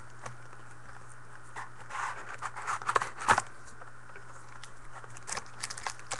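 Scattered rustles, taps and crinkles of a sealed box of trading card packs being opened and handled, with a steady low hum underneath.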